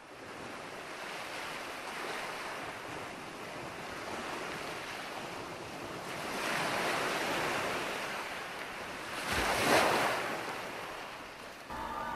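A steady rushing noise that swells about six seconds in and again, more sharply and briefly, near ten seconds.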